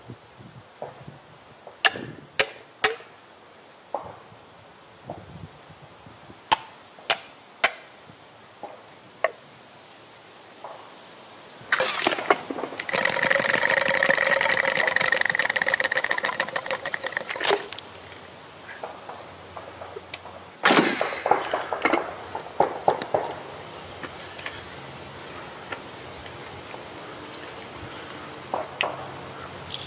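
Sharp wooden knocks and taps as bamboo tubes are fitted into holes in a log. About halfway through comes a loud, steady droning sound lasting about five seconds, followed by a burst of knocks and then lighter tapping.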